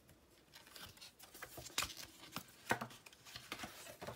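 Packaging being handled and unwrapped by hand: irregular rustling and crinkling with a few sharp taps and knocks.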